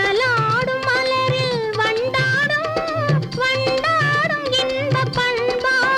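Instrumental interlude of an old Tamil film song: a wavering, ornamented melody line played over a steady tabla rhythm.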